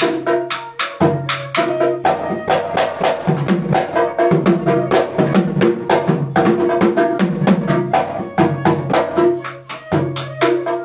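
Assamese Bihu dhol, a double-headed barrel drum, beaten quickly with a stick and the bare hand in a driving folk rhythm. A flute holds a melody over it.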